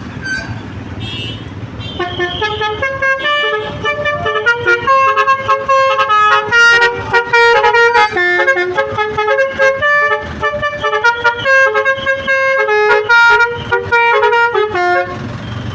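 Basuri V3 telolet horn, a multi-trumpet bus air horn, playing a fast tune of stepped tones. It starts about two seconds in and runs for about thirteen seconds.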